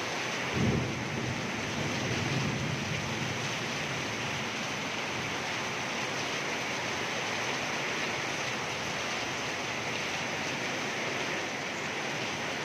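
Heavy rain with strong wind in a rainstorm, a steady rushing hiss. A short low rumble comes just under a second in, and a softer one a second or so later.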